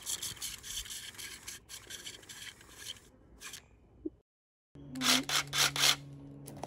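Chalk line reel being cranked to rewind its string, a rapid rasping whirr for about three seconds. After a short break come several louder short rasping bursts.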